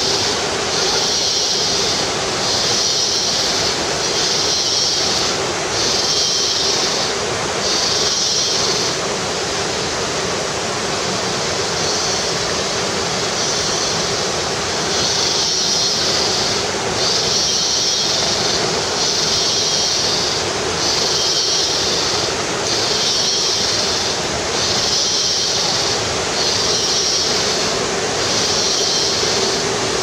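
Steady rushing of La Fortuna waterfall through the forest. Over it, a high-pitched buzzing pulses every second or two, stopping for a few seconds near the middle and then starting again.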